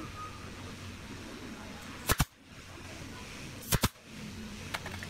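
Pneumatic nail gun firing twice, about a second and a half apart, each shot a sharp double crack, then two faint clicks near the end, over a steady low hum.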